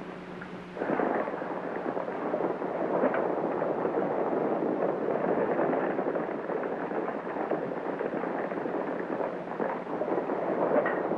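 Polo ponies galloping across turf: a dense, continuous rumble of many hoofbeats that starts suddenly about a second in and stops just after the end.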